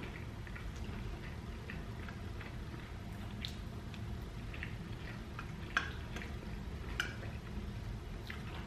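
A person eating close to the microphone: chewing and lip-smacking with many small wet mouth clicks, over a steady low hum. Two sharper clicks stand out, about six and seven seconds in.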